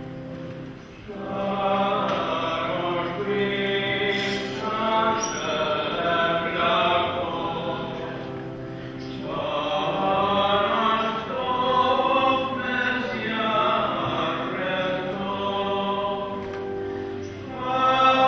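Church choir singing a slow hymn over steady held low chords; the voices come in about a second in and ease off briefly near the middle before going on.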